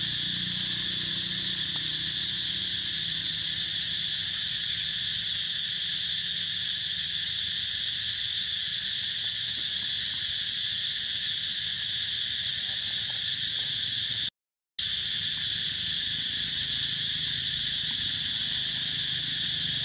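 Steady, high-pitched drone of a forest insect chorus, unbroken and even in level, cutting out completely for a split second about fourteen seconds in.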